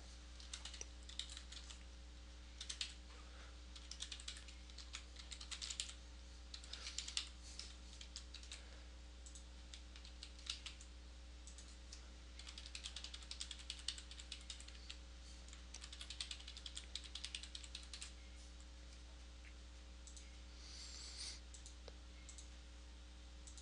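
Computer keyboard typing, faint, in runs of quick keystrokes with short pauses between, over a steady low electrical hum.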